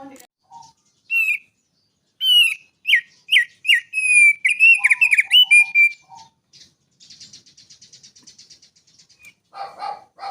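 A small songbird singing: a run of sharp chirps and quick downslurred whistled notes, then a fast, fainter buzzy trill about seven seconds in.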